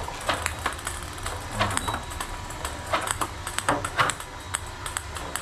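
Huipang S6 Pro table-tennis robot running with its head oscillating: a steady low motor hum under a string of irregular light clicks as ping pong balls are fired out and bounce.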